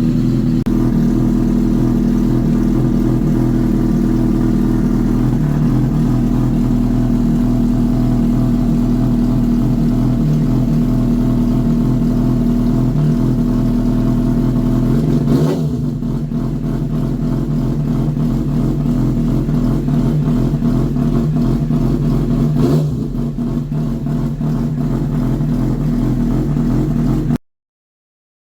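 Honda CBR1000RR SC57 inline-four idling through an aftermarket slip-on silencer, with two short throttle blips, about fifteen and twenty-three seconds in. The sound cuts off suddenly near the end.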